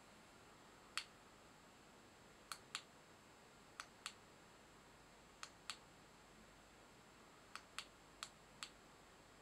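Eleven sharp light clicks, most in quick pairs, over a quiet room: the switch of a handheld UV torch being clicked on and off while curing UV resin on the fly's head.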